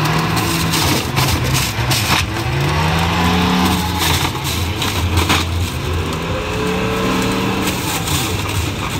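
Electric juicer running as carrots are pressed down its feed chute, the motor's pitch sagging and recovering several times as each carrot loads the cutting disc. Crunching as the carrots are shredded.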